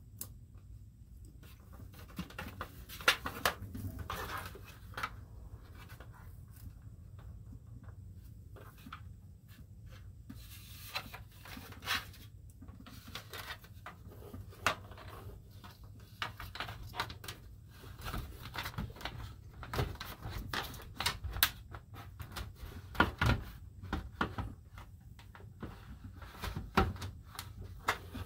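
Hands handling a white plastic vent-fan housing and its wiring close up: irregular clicks, knocks and rubbing of hard plastic, with the rustle of wires.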